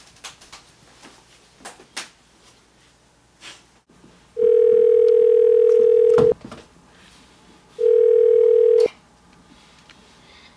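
Telephone ringing with a steady electronic tone: one ring of about two seconds, then a shorter ring cut off with a click as the phone is picked up. A few soft clicks and taps come before the first ring.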